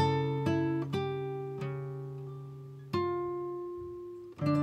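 Background music: guitar notes plucked a few at a time, each ringing out and slowly fading before the next.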